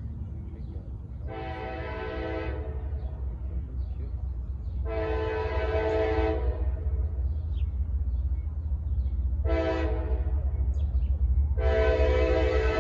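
Diesel locomotive air horn sounding the grade-crossing signal of long, long, short, long blasts, each a chord of several notes, which marks a train approaching a road crossing. Under it, the steady low rumble of the approaching train grows louder.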